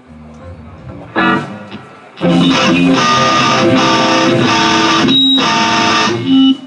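Electric guitar through an amplifier: one short strum about a second in, then loud strummed chords repeated with short breaks until just before the end.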